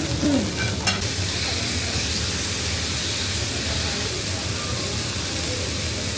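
Steady road and engine noise inside a moving car: a low rumble with a constant hiss over it, and a short click about a second in.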